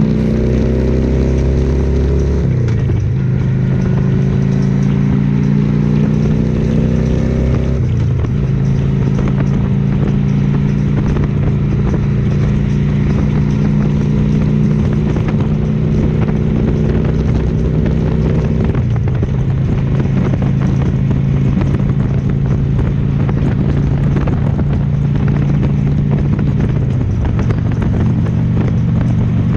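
Harley-Davidson V-twin motorcycle engine under way. Its pitch climbs and then drops sharply twice in the first eight seconds as it shifts up through the gears, then it runs at a steady cruise, with slight pitch changes later on.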